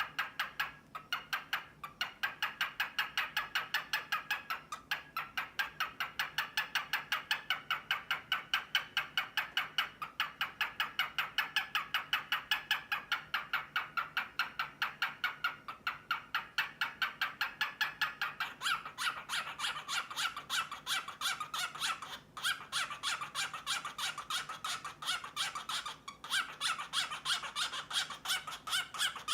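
Male cockatiel giving a long, rapid run of repeated 'ka-ka-ka' calls as a courtship display to a female. The pulses run on without a break and change in character about two-thirds of the way through.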